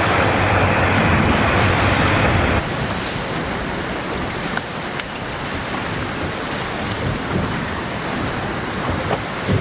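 Steady rushing of wind and water, which drops suddenly in level about two and a half seconds in and carries on more quietly with a few faint clicks.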